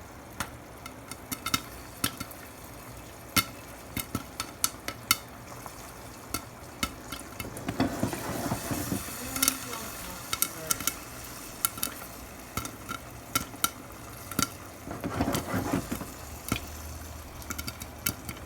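Microwave popcorn kernels popping in a hot frying pan: sharp single pops over a steady sizzle of the butter oil, the pops coming more often as it goes on. Twice, around eight and fifteen seconds in, a louder stretch of stirring or shaking in the pan.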